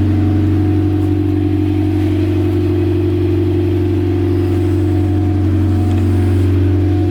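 Car engine running at a steady speed, a continuous loud low hum.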